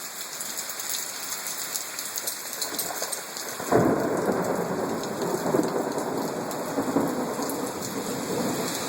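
Steady rain falling, then about four seconds in thunder breaks suddenly and rumbles on loudly.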